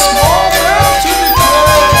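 Metal music: drums with repeated kick-drum beats and cymbals under a high lead melody that slides between held notes.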